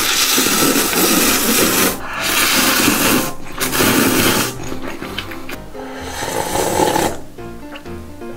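A person slurping instant cup ramen noodles: four long slurps, the last one weaker.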